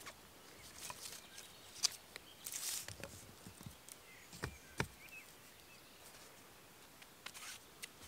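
Wooden sticks being handled and fitted together: a few light clicks and knocks of wood on wood, with a brief rustle of twigs about two and a half seconds in.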